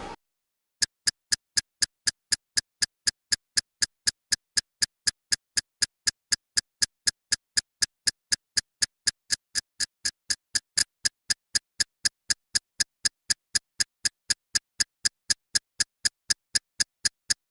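A steady ticking sound effect: short, sharp electronic ticks, evenly spaced at about three or four a second, all alike, starting just under a second in.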